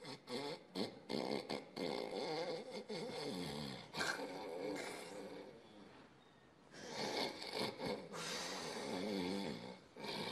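A man snoring in long drawn-out breaths, with a quieter pause of about a second just past the middle.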